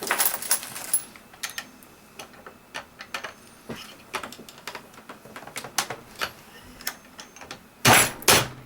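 Brass rifle cases clinking and a reloading press with a primer pocket swager die clicking as military brass is swaged to remove the primer crimp. A dense clatter of metallic clicks at the start, scattered single clicks after, and a loud clatter about eight seconds in.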